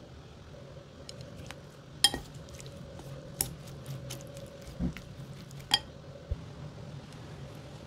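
Wooden chopsticks tossing salad in a bowl: a handful of sharp clicks and taps of the sticks against the bowl, the loudest about two seconds in, over a faint steady hum.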